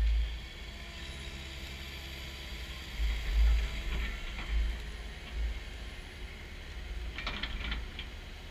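Kubota SVL90-2 compact track loader's diesel engine and hydraulics running, with several low rumbling swells and a quick cluster of sharp clanks or cracks about seven seconds in.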